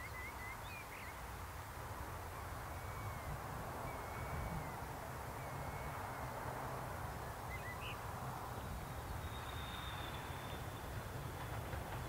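Birds chirping and giving short whistled notes over a low outdoor rumble. Over the last few seconds a faint steady high whine comes in as a diesel-hauled train approaches in the distance.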